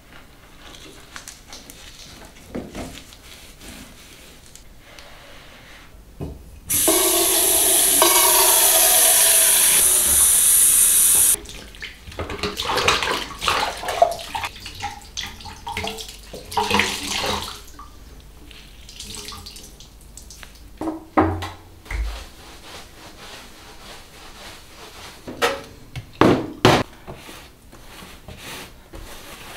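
Bathroom sink tap running for about five seconds, then a wet cloth being wrung out over the basin with water splashing and dripping in short irregular bursts. Near the end come a few short rubbing sounds of the cloth wiping the floor.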